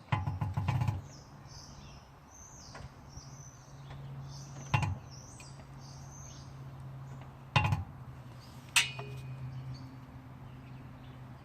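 Car being let down on a floor jack: a short rattling clatter at the start, then three sharp metallic clinks a few seconds apart, the last one ringing briefly. A steady low hum runs underneath, with faint bird chirps in the first half.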